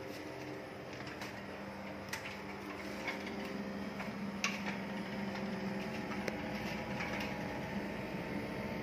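Outdoor unit of a Samsung Digital Inverter 1 PK split air conditioner running steadily, its inverter compressor and fan working to cool the room, giving a steady hum. A few faint clicks sound over it.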